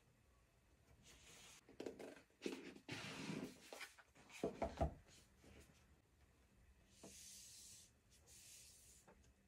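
Hands handling a tarot deck and its cardboard box on a wooden table: quiet rubbing and scraping of card stock, then a few light knocks about four and a half seconds in as the box is set down, and soft brushing of hands over the box near the end.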